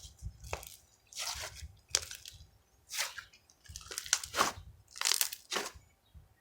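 A series of about seven short rustling sounds, each under half a second, from something being handled by hand.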